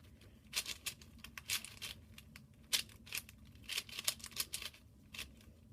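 Moyu Aosu 4x4 speed cube being turned by hand for its first turns: a run of quick, irregular plastic clicks and clacks.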